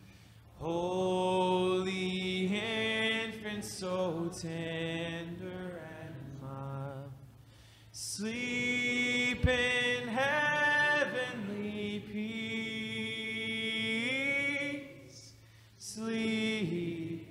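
Voices singing a slow hymn in long, held phrases, with a short break for breath about every seven to eight seconds.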